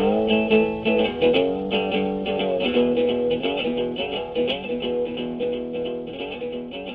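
Background music led by guitar, with held chords that change every second or so, slowly getting quieter as it fades toward its end.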